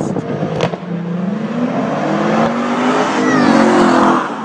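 Car engine revving hard under acceleration, its pitch climbing for about three seconds before it drops away near the end.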